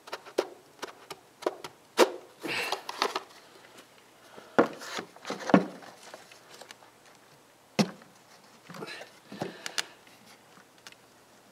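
Plastic PVC pipe fittings and a plastic lid being handled and pushed together: a string of sharp knocks and clicks with short stretches of scraping and rubbing in between.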